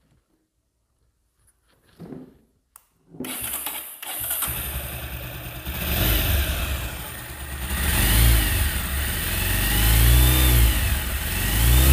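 Bajaj Pulsar motorcycle's single-cylinder engine started about three seconds in, then run and revved up and down several times with the clutch cover removed. This is a test to trace an abnormal engine noise, which the mechanic puts down to the clutch-side balancer or weight pinion and not the engine bearings.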